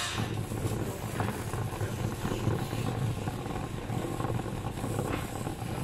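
Steady low rumble of shopping carts rolling on a concrete warehouse floor, with the general noise of a large store.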